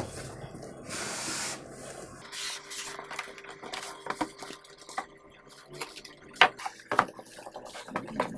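Cardboard box flaps and plastic wrapping rustling and rubbing as a boxed monitor is lifted out of its packaging, with a couple of sharp knocks about two-thirds of the way through.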